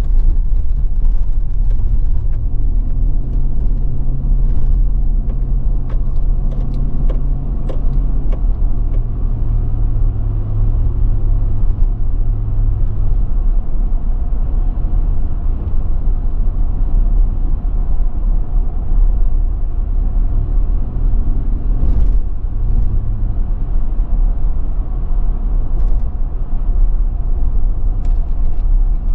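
Car being driven, heard from inside the cabin: a steady heavy rumble of engine and road noise. The engine note rises and holds for several seconds a couple of seconds in, and comes up again briefly past the twenty-second mark, with a few light knocks scattered through.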